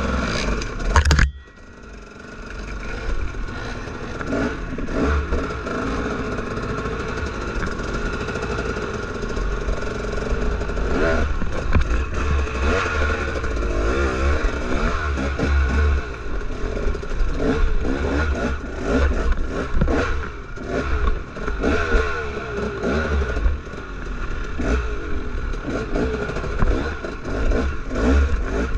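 Dirt bike engine running and revving under load on a rocky trail, with rocks clattering and scraping under the tyres and frame. About a second in there is a sharp knock, and the sound drops away briefly before the engine builds again.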